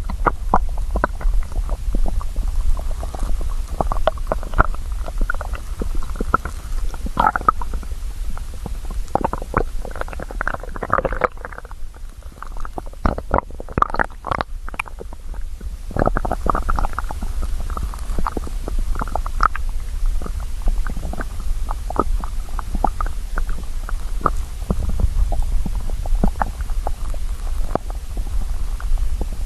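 Hungry stomach growling: a rapid run of small gurgles and pops over a steady low rumble, thinning out for a few seconds around the middle before picking up again.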